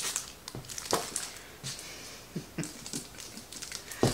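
Scattered light taps, clicks and rustles of a small sign and its packaging being handled and unwrapped.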